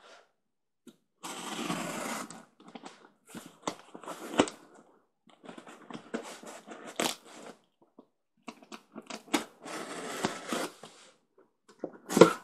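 A cardboard shipping box being opened by hand: longer tearing and rasping stretches, like tape or cardboard being ripped, twice, with rustling and many short knocks and clicks of the box being handled.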